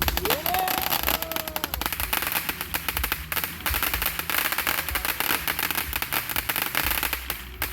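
Consumer fireworks crackling: a dense, rapid string of sharp pops that runs for about seven and a half seconds and stops just before the end, with a short rising-and-falling tone near the start.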